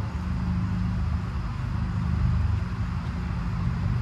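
Steady low mechanical hum and rumble.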